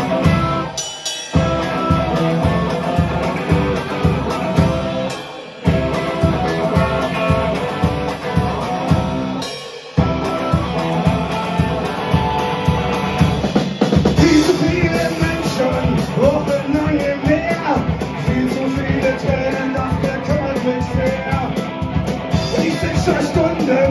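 Live rock band, electric guitar and drum kit, playing a steady fast beat with three brief stops in the first ten seconds. A man's singing voice comes in at about fourteen seconds.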